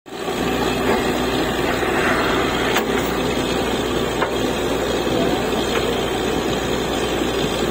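Truck-mounted borewell drilling rig running: a steady engine drone with a low hum, with a couple of faint metal clinks.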